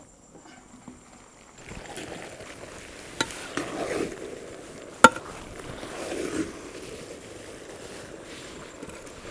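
Metal spatula stirring and scraping chicken in a large metal pan, with clinks of the spatula against the pan. The loudest is a sharp clank about five seconds in.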